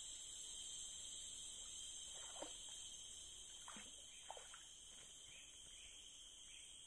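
Faint, steady, high-pitched drone of insects, with a few short chirping calls around the middle.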